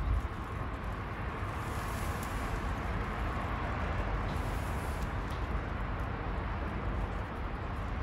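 Steady outdoor background rumble and hiss, with no clear bird call.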